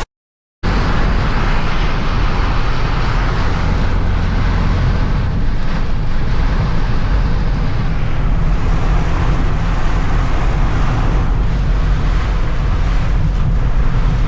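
Steady, loud, deep rumble of a moving vehicle, its engine and road or wind noise running unbroken with a hiss over the top.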